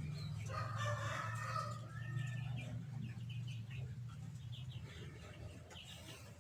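A chicken calling, with short bird chirps later, over a steady low hum.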